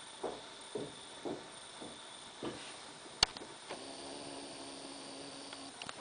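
Soft muffled thuds about twice a second, then a sharp click a little past halfway. An AC servo motor, jogged from its drive's buttons, then runs for about two seconds with a steady hum and a faint high whine, and stops with a small click.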